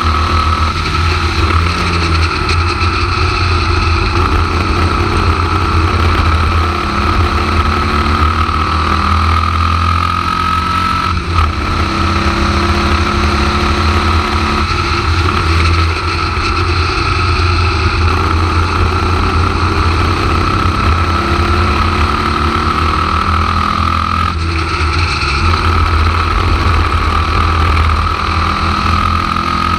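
Formula Vee racing car's air-cooled Volkswagen flat-four engine at racing speed, heard from the cockpit. Its pitch slowly climbs and falls, with brief breaks about 11 seconds and 24 seconds in.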